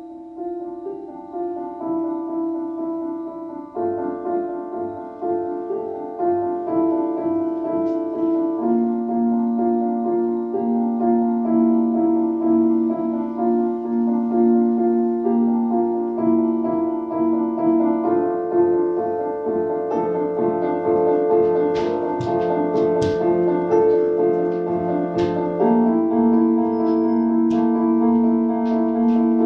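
Electronic keyboard with a piano sound playing a slow passage of sustained chords and notes that swells gradually louder. A few sharp clicks sound over the music about two-thirds of the way through.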